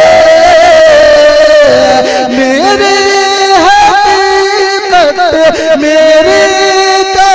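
Male voice singing a naat, drawing out long held notes with many ornamented turns and bends in pitch.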